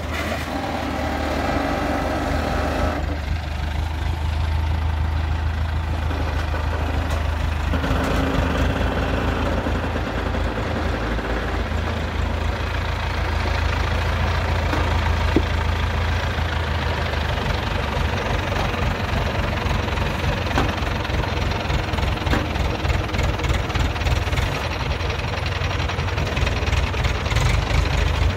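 Engine of a truck-mounted crane running steadily with a low drone, powering the crane boom as it lifts and swings a bundle of granite slabs.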